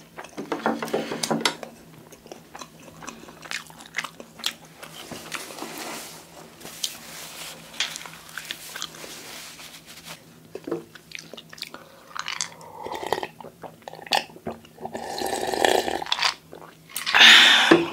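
Close-miked chewing and wet mouth sounds with many small clicks. Near the end come gulps from a drinking glass, then a loud breathy burst.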